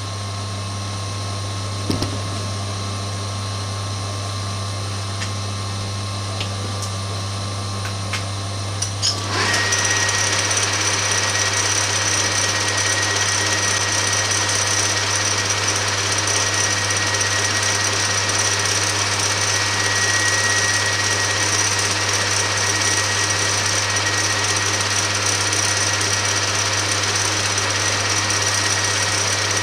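A metal lathe running with a steady hum while the dome head of a replacement bolt is machined, with a couple of sharp clicks early. About nine seconds in, a louder steady power-tool whine with a harsh grinding noise starts and runs on as the head is shaped.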